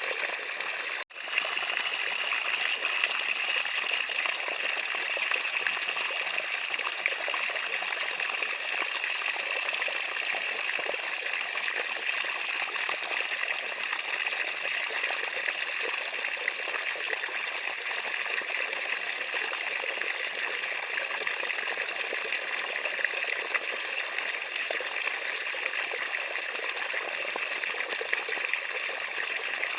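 Running water trickling and rushing steadily, broken by a momentary dropout about a second in.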